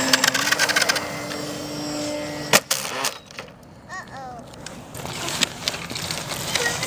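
Homemade foam RC plane's motor and propeller running at a steady pitch that steps up slightly as throttle is added, then cut off by a single sharp knock about two and a half seconds in as the plane crashes and breaks its propeller.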